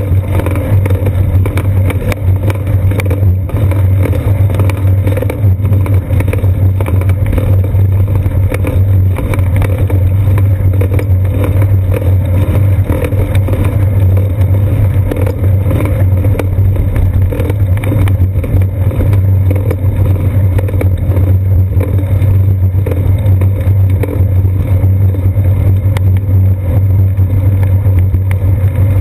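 Steady low rumble of wind and road vibration on a seat-post-mounted GoPro Hero 2 in its housing as the bicycle rolls along a paved path.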